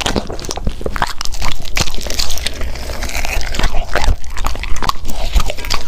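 Golden retriever biting and chewing a piece of crusty, flaky baked pastry, heard close up: a quick, irregular run of crunches and chewing clicks.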